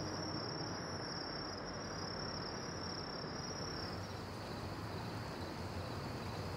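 Night ambience of crickets trilling in one steady high note over a low, even rumble. About four seconds in, the trill drops slightly lower and fainter.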